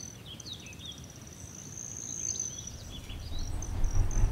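Birds chirping and an insect trilling at a steady high pitch, over a low rumble that grows louder near the end.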